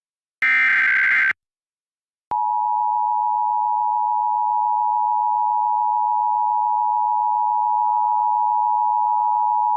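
Emergency Alert System tones: a burst of SAME header data, a rapid warbling digital screech encoding a Child Abduction Emergency, then about a second of silence, then the steady two-tone attention signal (853 and 960 Hz).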